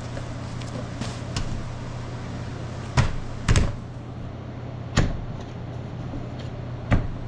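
Four sharp knocks or thuds, spaced one to two seconds apart, over a steady low machine hum.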